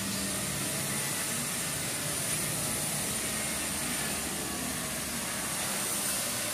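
Electric car polisher running steadily, a continuous motor whir and hiss.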